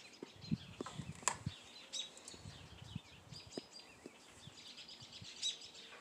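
A flock of small birds chirping and calling in bare trees, short high chirps scattered throughout. Low rumbling from the phone being handled in the first half, and a sharp click a little over a second in.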